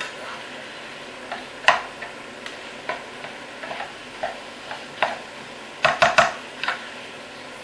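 A spoon stirring minced meat as it sizzles in a pot, with the range hood fan running. Scattered clicks and scrapes of the spoon against the pot, and three quick loud knocks about six seconds in.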